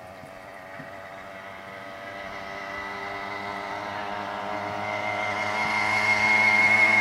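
Motorbike engine running at a steady pitch as it approaches, growing steadily louder.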